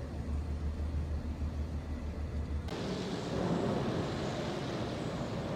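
Steady city ambience with a low rumble under a haze of rain noise. A little under three seconds in it changes abruptly to a brighter, more even hiss of street traffic.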